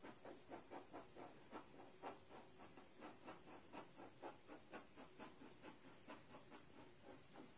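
Faint, quick scratching strokes of a pencil on paper, about four a second, as a portrait is shaded with the pencil held between the toes.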